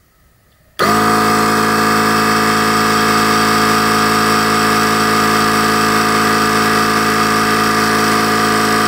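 Parkside 20V cordless air compressor switching on about a second in and then running steadily at an even pitch, pumping air into a quad tyre.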